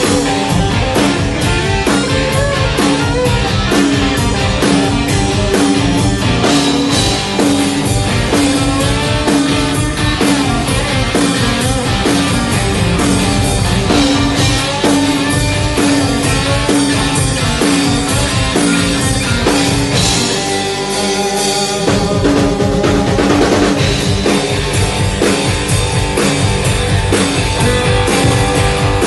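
Live rock band playing: electric guitars over a drum kit, loud and steady. About two-thirds of the way in, the bass and drums drop away for a couple of seconds, then come back in.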